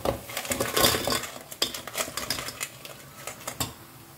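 Shell-on crab pieces being tipped into a pan of cooked masala and stirred: a run of clattering clicks and knocks of shells and spoon against the pan, dying away near the end.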